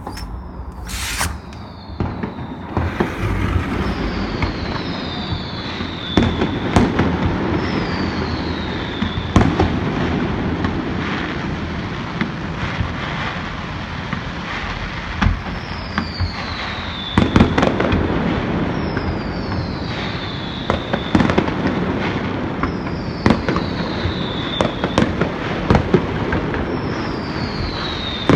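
Fireworks display going off continuously: a steady rumble and crackle with many sharp bangs, and about ten short whistles that each fall in pitch.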